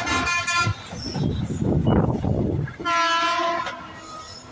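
Train horn sounding two short blasts about three seconds apart, over the rumble of a moving train.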